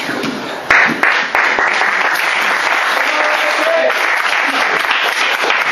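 A small group applauding, breaking out suddenly under a second in and then clapping steadily, with a few voices over it.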